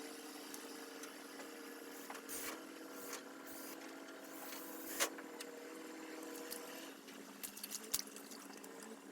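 A steady low machine hum with a few sharp clicks and knocks over it.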